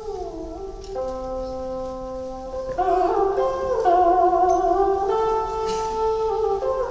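Traditional Vietnamese instrumental music for water puppetry: a melody with sliding, wavering pitches over held notes. It grows louder about three seconds in.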